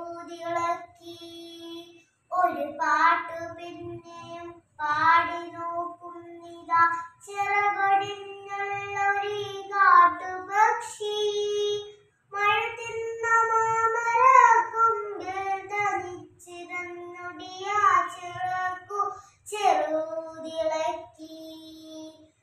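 A young girl singing a Malayalam poem solo in the chanted, melodic style of kavitha recitation, with no accompaniment: phrase after phrase of held, gliding notes, with brief breaths between lines.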